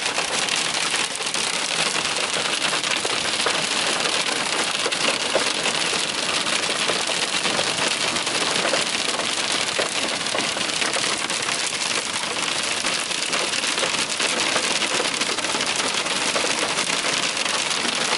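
Hail and heavy rain drumming on a car's roof and windshield, heard from inside the cabin as a dense, unbroken patter of countless small impacts at a steady level.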